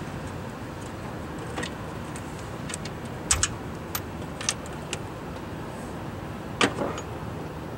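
Scattered light metallic clicks and clinks of hands and tools working on the starter down in a 1963 Dodge Dart's engine bay. The loudest are a quick pair about three seconds in and a single sharp clink near the end, over a steady low background rumble.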